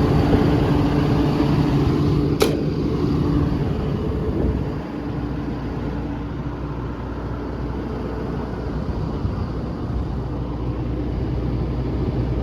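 John Deere 160D excavator's 4.5-litre diesel engine running steadily at idle, easing slightly about four and a half seconds in. A single sharp click sounds about two and a half seconds in.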